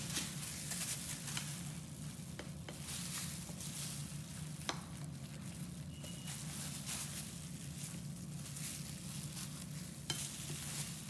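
Raw spiced minced-beef kabab mixture being scraped out of a bowl with a spatula and gloved hand into a ghee-greased frying pan that has not been heated: scraping and a plastic glove crinkling, with a few sharp taps, over a steady hiss and low hum.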